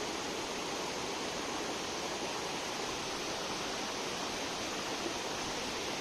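Steady rush of fast-flowing stream water pouring through a concrete channel and over small cascades.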